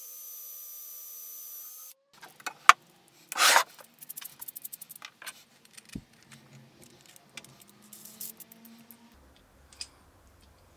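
Cordless drill running steadily as it bores through a wooden dowel held in a bench vise, stopping about two seconds in. Then a sharp knock, a brief rushing noise and a string of small clicks and knocks as the drilled dowel is handled and fitted onto a bolt.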